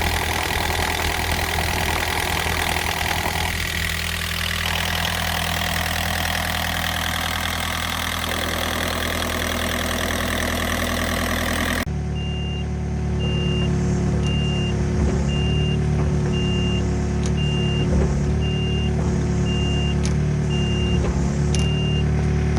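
Takeuchi TB145 mini excavator's Yanmar diesel engine running steadily. About halfway through, the sound changes abruptly to the engine running lower, with a warning beeper sounding short, evenly spaced beeps a little faster than once a second, and a few light clicks.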